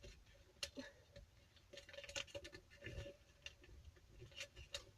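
Faint, scattered rustles and crinkles of a sheet of paper being handled and folded, with a dull knock about three seconds in.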